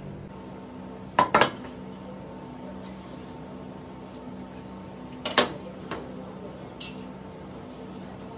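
A chef's knife knocking and clattering against a wooden board as a grilled stuffed roll is handled and cut through: a quick double knock about a second in, the loudest knock just past five seconds, then a few lighter taps. A steady low hum runs underneath.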